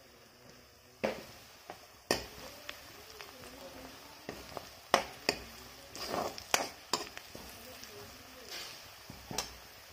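Metal spatula scraping and knocking against a wok while sliced onions sizzle in hot oil. The sharp scrapes come at irregular intervals, the loudest about halfway through.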